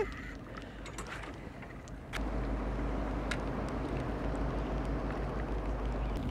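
Boat engine running with a steady low hum that comes in suddenly about two seconds in, with a few faint clicks.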